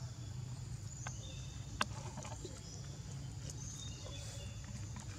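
Outdoor woodland ambience: faint, short bird chirps over a steady high hiss and low rumble, with one sharp click a little under two seconds in.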